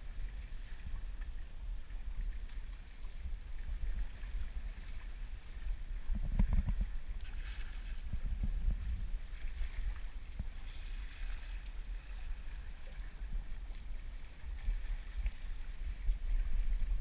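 Water rushing and splashing along a sailing boat's bow as it moves through the sea, over a low wind rumble on the microphone. A louder stretch of splashing comes about six to nine seconds in.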